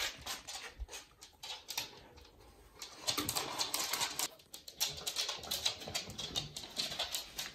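Pembroke Welsh corgis' claws clicking on a hard floor as the dogs walk and scramble about, in quick irregular clicks with a short lull about two seconds in.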